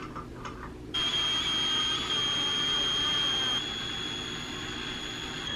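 Cordless drill driving a screw into the wall: a steady high whine that starts about a second in, eases slightly a little past halfway, and cuts off abruptly near the end.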